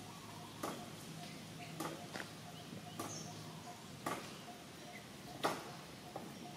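Macaques eating ripe mango: irregular sharp clicks and smacks of chewing and lip-smacking, roughly one a second.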